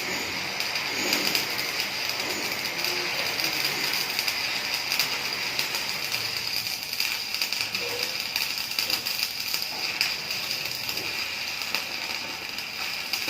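Electric arc welding on a steel C-channel: a steady crackling hiss with fine rapid pops throughout.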